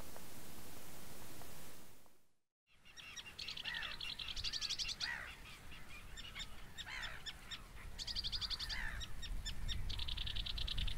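A steady hiss fades out, and after a brief silence several songbirds sing, with rapid trills and short slurred notes overlapping.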